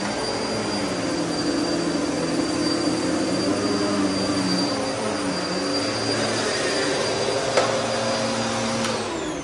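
Upright vacuum cleaner running over carpet, its motor hum wavering as it is pushed back and forth, with a sharp click near the end. Just before the end the level drops and the tones fall away, as the motor is switched off and winds down.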